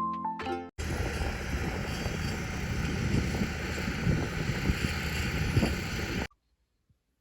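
The last plucked notes of a ukulele tune fade out. After a brief gap, a steady rumbling, wind-like noise runs for about five seconds, then cuts off suddenly into silence.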